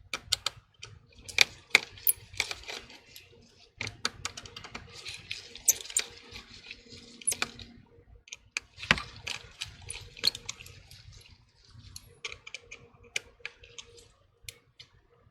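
Irregular small clicks and taps of a tri-point screwdriver and handling of an opened iPhone 12, with stretches of soft scraping noise between them.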